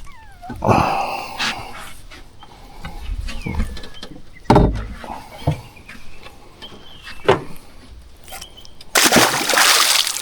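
Water splashing and scattered knocks around a fishing boat, with a louder burst of splashing noise lasting about a second near the end.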